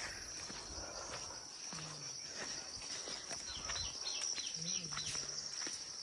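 Steady high-pitched insect chorus, with scattered small clicks and brief faint voices in the background.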